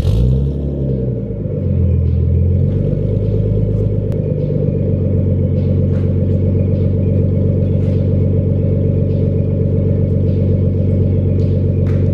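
Nissan Skyline R32 engine idling through its HKS exhaust just after start-up. The engine speed swings up and down briefly in the first two seconds, then settles into a steady idle.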